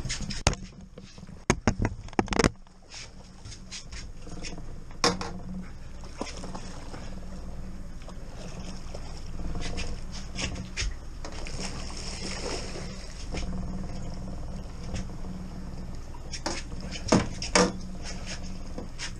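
Sharp knocks and clatter of fishing gear and a landing net against a small boat while a hooked fish is played and netted: a cluster of knocks about two seconds in and another pair near the end. Under them runs a steady low hum from the boat's outboard motor.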